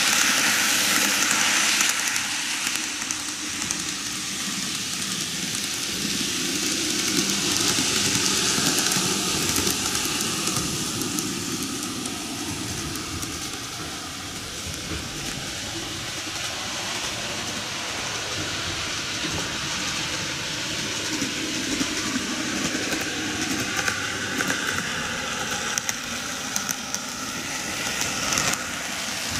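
N-gauge model trains, a TOMIX KiHa 8200 set and a Meitetsu 8800 Panorama DX set, running on canted TOMIX track: small motors whirring and wheels clicking along the rails. The sound is loudest for the first couple of seconds as the KiHa passes right by, and swells again near the end as it comes past once more.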